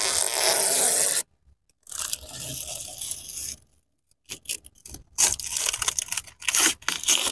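Clear protective plastic film being peeled off an ATV's glossy plastic body panels and tail light: rustling, tearing pulls with short silent pauses between them, ending in a run of quick crackles as the film crinkles.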